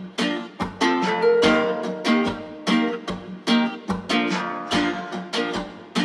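Background music: a plucked string instrument played in a steady rhythm of about two to three notes a second.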